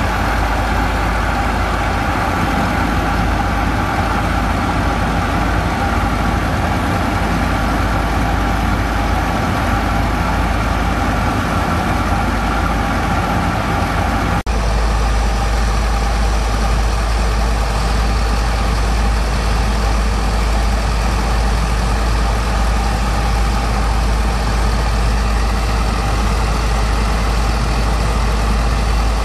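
Diesel engine driving a sand pump on a barge, running steadily. About halfway through, the sound changes abruptly and the low hum becomes stronger.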